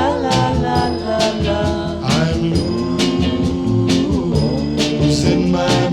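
1960s band recording played from a mono 45 single: an instrumental passage of the song, with a drum beat of about two hits a second under the band.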